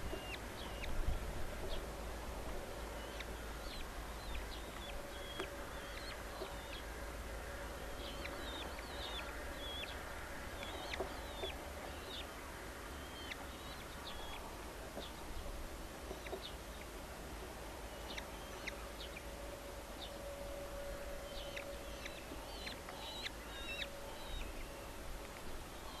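Red-footed falcon chicks giving short, high-pitched begging calls in quick clusters while being fed, over a steady low rumble.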